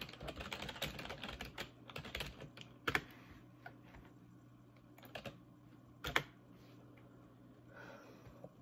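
Typing on a computer keyboard: a quick run of keystrokes over the first couple of seconds, then a few single key clicks spaced out.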